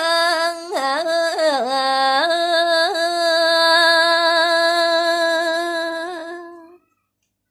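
A woman singing a Balinese pupuh (gaguritan verse) unaccompanied, holding one long note with a wavering melismatic turn about a second in, then letting it fade away near the end.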